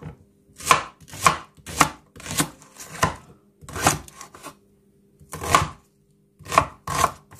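Kitchen knife slicing a red onion on a wooden cutting board: about ten separate cuts, each ending in a sharp knock of the blade on the board, at an uneven one or two a second with a pause about five seconds in.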